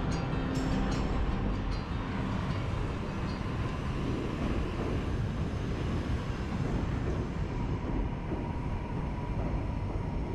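Electric commuter train passing over an elevated railway bridge: a steady rush of wheels on track, a little stronger around the middle.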